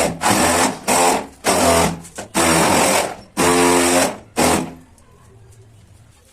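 A power tool's motor run in about six short, loud bursts, starting and stopping in quick succession, then falling silent near the end.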